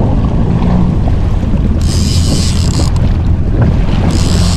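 Jet ski engine running steadily at low speed, with wind buffeting the microphone and the wash of the sea. Two bursts of high hiss come through, about two seconds in and again near the end.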